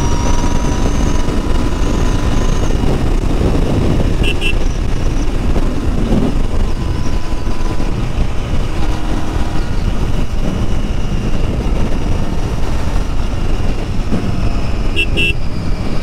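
Royal Enfield Interceptor 650's parallel-twin engine running steadily at highway speed, mixed with heavy wind and road noise. Two brief bursts of short high beeps, about four seconds in and near the end.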